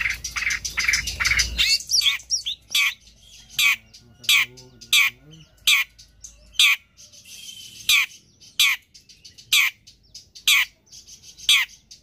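Long-tailed shrike singing: a fast run of high notes at first, then a long series of short, sharp, downward-slurred calls about once a second.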